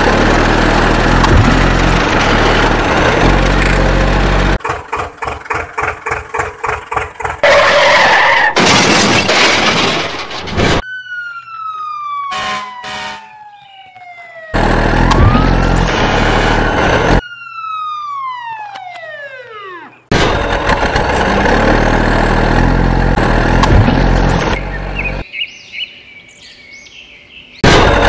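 A run of sound effects dubbed over toy trucks, in abruptly cut segments: loud dense stretches, a couple of seconds of fast rhythmic pulsing, and two long descending whistles, each sliding down in pitch over about three seconds.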